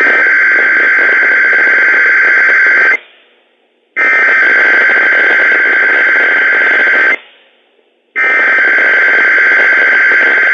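Emergency Alert System SAME header on NOAA Weather Radio: three identical bursts of screechy digital data tones, each about three seconds long with about a second of quiet between them. These bursts open the alert, here a Required Weekly Test.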